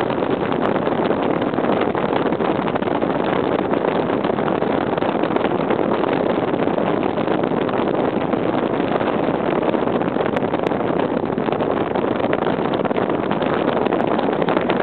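Steady rush of wind and road noise from a moving car, heard through its open window, with no clear pitched sound standing out.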